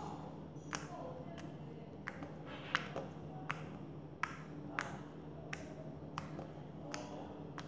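Slime being pinched and poked between the fingertips, giving sharp little clicks and pops about once every half second to second, over a faint steady low hum.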